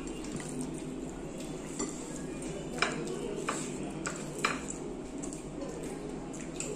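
Cutlery clinking against a plate during a meal, four sharp clinks in the middle stretch over a steady low background.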